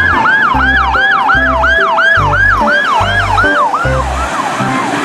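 Emergency vehicle siren in a fast yelp, its pitch sweeping up and down about three times a second and fading out about four seconds in. Background music with a steady low beat plays under it.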